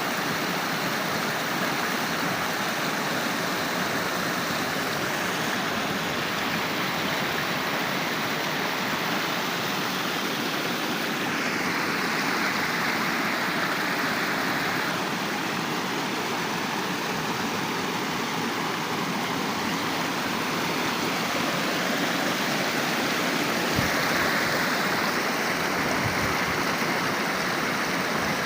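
Waterfall: water falling and rushing in a steady, dense hiss.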